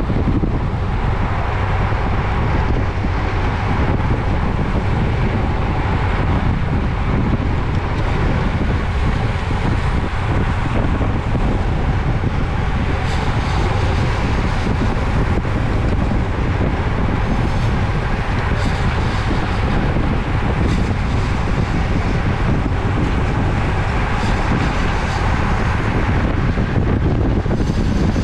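Steady wind noise on the microphone of a bicycle-mounted camera riding at race speed, over a low road hum.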